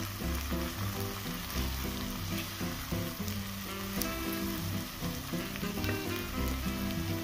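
Whole brown lentils and onion sizzling in a pot, now that the cooking water is absorbed, with a wooden spoon stirring and scraping through them. Background music with pitched notes plays underneath.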